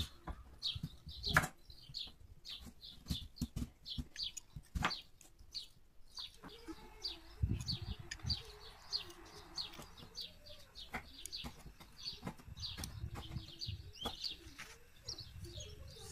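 Kitchen knife cutting through raw sweet potato and knocking on a wooden cutting board in irregular sharp clicks, the loudest about a second and a half in. Small birds chirp over and over in the background.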